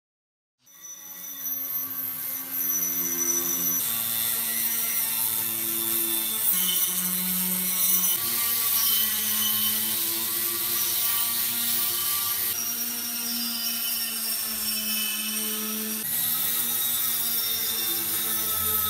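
A small power tool running steadily, with a motor whine over a grinding rasp. Its pitch shifts abruptly every four seconds or so.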